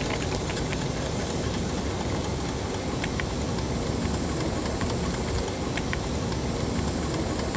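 Small sun-powered model steam engine running on steam from a beer-bottle boiler, with a steady hiss of escaping steam. The engine leaks steam at a poor seal and is losing compression.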